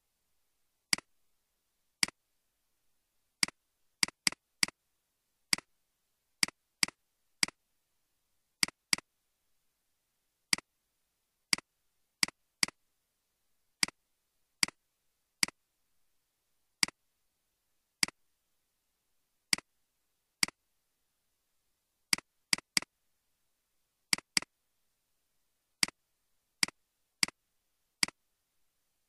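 Computer mouse clicks: about thirty short, sharp clicks at irregular intervals, some coming in quick pairs or threes, with dead silence between them.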